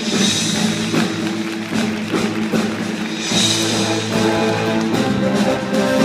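A live theatre orchestra plays up-tempo curtain-call music, with two cymbal-like crashes about two and a half seconds apart.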